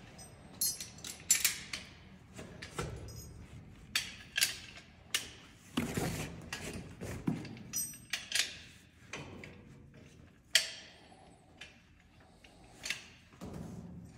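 Carabiners and an MPD rope device clinking and clicking as they are clipped onto a webbing anchor strap: scattered sharp metal clicks and knocks, some ringing briefly.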